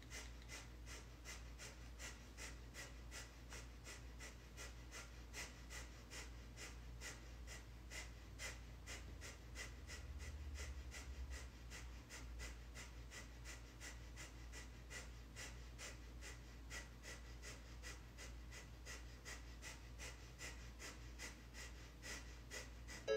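Breath of fire: rapid, even, forceful breaths through the nose, about three a second, pumped from the navel.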